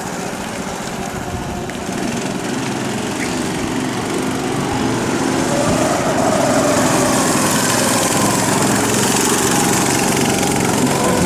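Small go-kart engine running as the kart drives a slalom course, its pitch rising and falling as the driver accelerates and lifts off, and getting louder about six seconds in.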